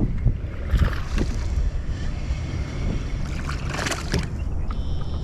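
Water splashing and swishing around a kayak twice, about a second in and again near four seconds, over a steady low rumble of wind on the microphone.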